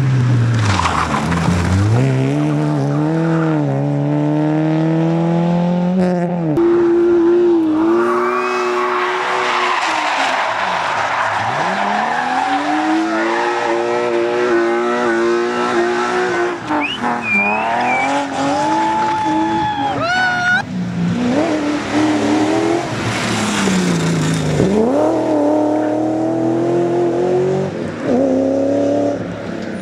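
Rally car engine revved hard and lifting off again and again as it is driven through the stage. Its pitch climbs and falls with each gear and corner, and there is tyre squeal around two-thirds of the way through.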